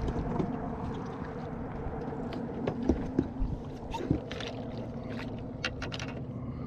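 A steady motor hum aboard a bass boat, with scattered knocks and clicks as a hooked catfish is handled, a couple of sharper knocks about three and four seconds in.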